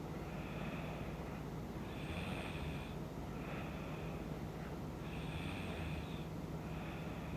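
A woman snoring in her sleep: a longer snoring breath followed by a shorter one, repeating about every three seconds, over a steady low hum.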